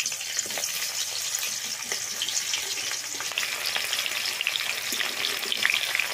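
Freshly added sliced onions frying in hot oil in a metal kadai: a steady crackling sizzle, stirred with a metal spatula.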